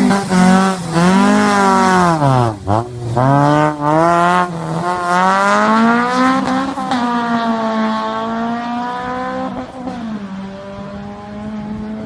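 Honda with a large-bore 'fart can' exhaust tip accelerating hard, its buzzing exhaust note climbing and dropping sharply at gear changes about two and a half and four and a half seconds in, then holding steady before easing off near the end.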